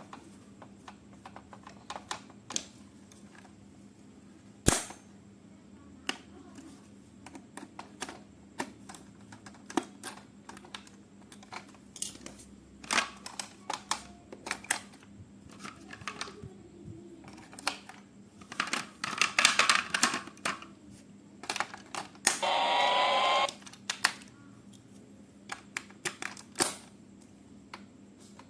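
Scattered clicks and taps of hard plastic toys and packaging being handled, with one sharp snap about five seconds in. A brief rasping burst comes near the end.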